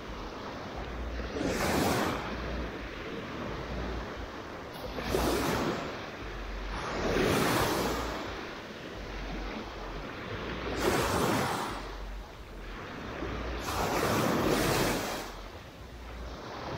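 Small waves breaking and washing up on a sandy beach, a surge of surf swelling and fading every three seconds or so, with some wind buffeting the microphone.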